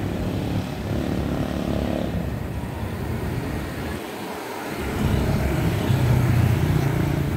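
Street traffic: motor scooters and cars driving past with a steady engine drone. A scooter passing close makes it louder from about five seconds in.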